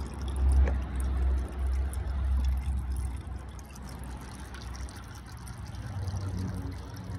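Used engine oil trickling in a thin stream from an upturned spin-on oil filter into a plastic tub of drained oil. A low rumble is heaviest over the first three seconds, then eases.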